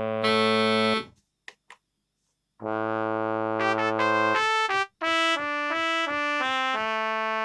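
Kurzweil K2000 synthesizer playing one of its factory programs dry, with no effects. A held chord cuts off about a second in, followed by a pause broken by two short blips. From a little after halfway through the first half, chords and short notes change every half second or so.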